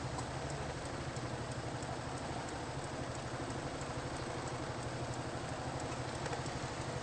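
A vehicle engine idling steadily, with faint ticking over the top.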